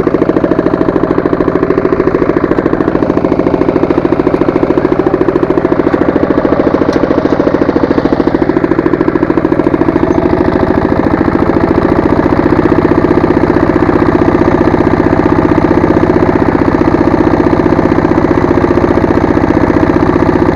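Walk-behind tractor engine running steadily with a rapid, even chugging pulse. The engine note shifts slightly about halfway through.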